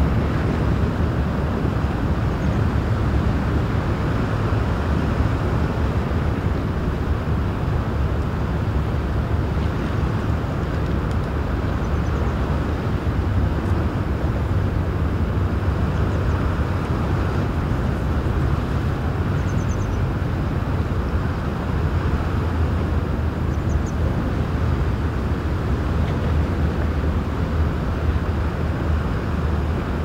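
Large cruise ship, the MSC Grandiosa, moving slowly into harbour: a steady deep rumble of its engines and propulsion, with a constant drone low in pitch under a broad wash of noise. A few faint high chirps sound briefly over it.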